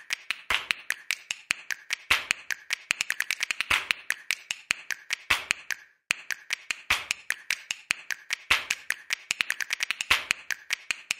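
A run of sharp, dry clicks and taps at uneven spacing, several a second and sometimes in quick clusters, with a brief pause about halfway through.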